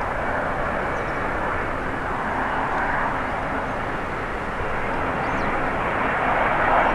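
Airbus A350's Rolls-Royce Trent XWB turbofans on landing approach: a steady jet engine rush, growing a little louder near the end as the airliner closes in.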